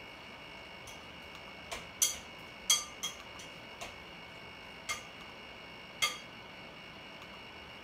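About eight sharp little clicks at irregular intervals, the loudest about two, three and six seconds in, over a faint steady high-pitched hum.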